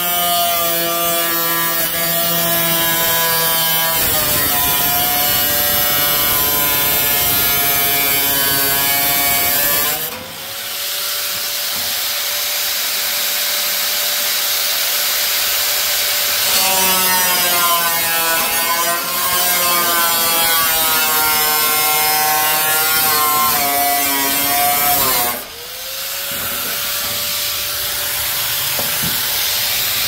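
Small angle grinder with a cut-off wheel cutting through sheet metal, its motor whine wavering in pitch under load over a harsh grinding rasp. Twice, about ten seconds in and again about twenty-five seconds in, the sound dips and the motor winds back up to a steady whine.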